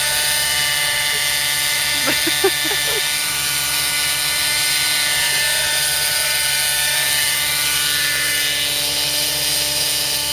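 Velocity 50 nitro radio-controlled helicopter's glow engine and rotors running steadily in a low hover, a constant high-pitched whine with no change in pitch.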